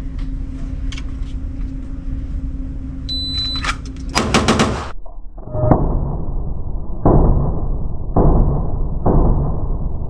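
A shot timer beeps once, and a moment later a ported Glock 19C with a Vantage Point Armory compensator fires a fast string of 9mm shots in well under a second, a bill drill. Four heavier, duller booms with long tails follow, about a second apart.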